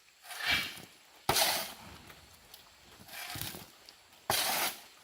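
Banana leaves rustling and tearing in four short bursts, two of them starting sharply, as juvenile howler monkeys pull at and eat them.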